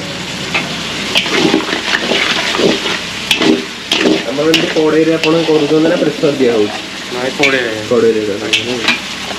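Food frying and sizzling in a pan, with scattered sharp clinks of a metal utensil being stirred against it.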